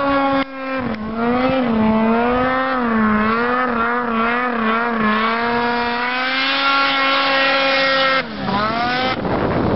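Ski-Doo Summit 800 snowmobile's stock 800 HO two-stroke twin, fitted with an HPS exhaust can, running hard at high revs as the sled skims across water. The pitch wavers with the throttle. It drops briefly about half a second in, and near the end it falls away and climbs back, after which a rushing hiss takes over.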